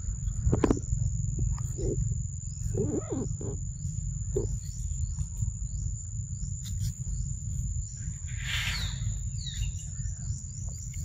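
Forest ambience: a steady high-pitched insect drone with repeated short falling chirps, over a constant low rumble. A brief hissing burst comes about eight and a half seconds in.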